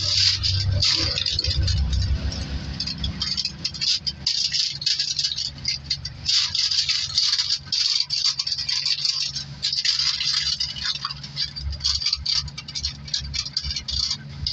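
Aluminium foil crinkling and crackling without a break as it is pressed and crimped around the rim of an oval metal flan tin, over a steady low hum.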